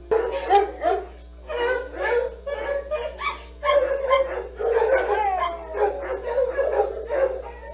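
Dogs barking, yipping and howling in a run of short, irregular bursts, some calls sliding in pitch.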